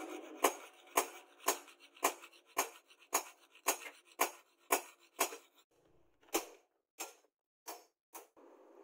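Hammer striking a forged steel hook blade: sharp metallic blows about twice a second, then a few slower, fainter blows near the end.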